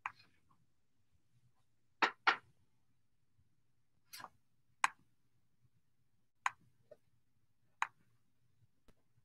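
Sparse, sharp light clicks and taps close to the microphone, as things are handled on the counter: a quick double tap about two seconds in, then single clicks every second or two, over quiet room tone.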